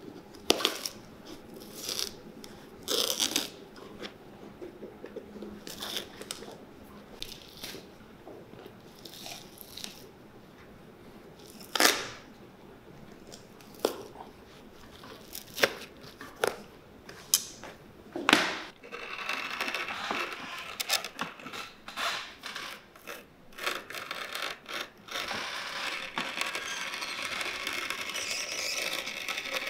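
Glued-on outsole being pried and torn off a boot, with scattered tearing sounds and sharp knocks. From about two-thirds of the way through, a steady rasping as a sheet of insole board is fed through a rotary cutting machine.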